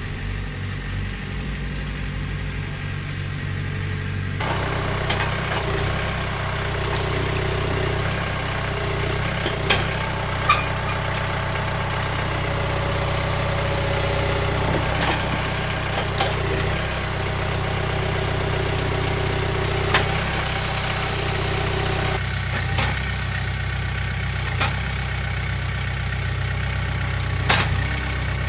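John Deere 4044M compact tractor's diesel engine running steadily, its note picking up about four seconds in, with a few sharp knocks along the way.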